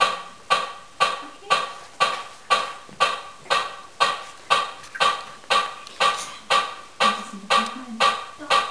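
A steady ticking beat: sharp, ringing taps about two a second, each with a clear tone that dies away before the next.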